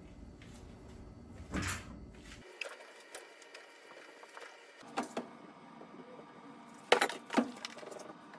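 Scattered clicks and knocks of things being handled, with two sharp knocks about seven seconds in the loudest.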